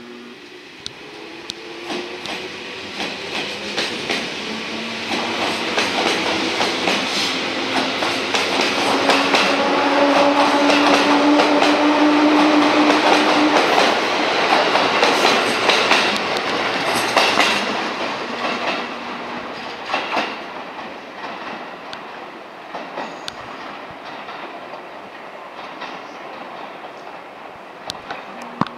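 JR 211 series electric multiple unit pulling out and accelerating past: the traction motor hum rises slowly in pitch and the wheels click over the rail joints. It is loudest while the cars pass, about ten to sixteen seconds in, then fades as the train draws away.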